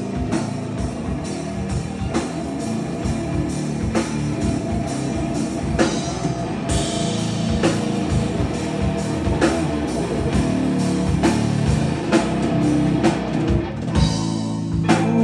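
Live hard rock three-piece playing an instrumental passage: seven-string guitar, six-string bass and drum kit over a steady beat. Near the end the drumming thins out, leaving held low notes.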